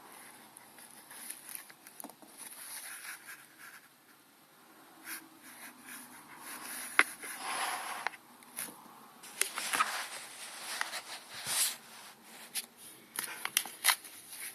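Packaging being handled and opened by hand: irregular rustling and crinkling with scattered sharp clicks and taps, busiest in the middle and near the end.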